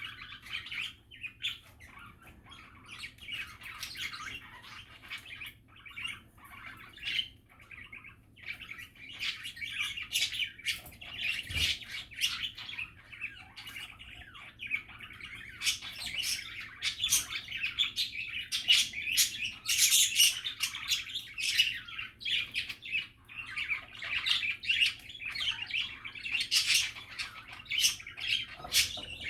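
Pet budgies (budgerigars) chattering: a continuous stream of warbling chirps and squawks, busier and louder in the second half. A brief low thump about eleven and a half seconds in.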